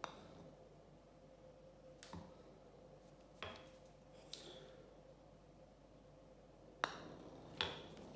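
Sharp clicks of a putter striking golf balls and of balls knocking on a tiled floor, several separate clicks with the two loudest near the end, over a faint steady hum.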